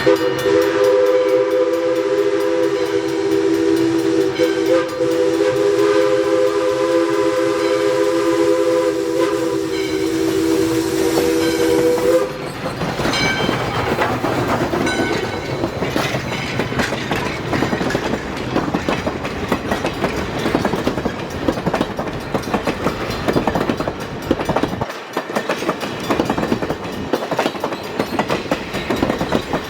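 Steam whistle of ALCO 2-8-2 Mikado No. 40 sounding one long chord of several tones, which cuts off about twelve seconds in. Then the train runs by with a heavy rumble and wheel clatter.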